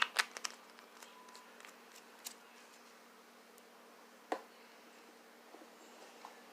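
A few sharp clicks and taps, several close together at the start, then one a couple of seconds in and a louder one a little past the middle, over a faint steady hum.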